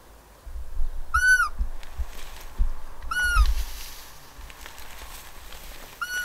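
A hunter's roe deer call blown three times, each a short, high, arched squeak imitating a doe's fiep to lure a roebuck during the rut. Low rumbling bumps on the microphone come through in the first few seconds.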